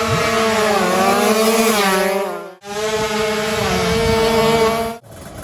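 Tuned two-stroke 155 cc drag-racing motorcycle engine revving, its pitch swinging up and down. The sound cuts off abruptly about two and a half seconds in, resumes, and cuts off again near the end.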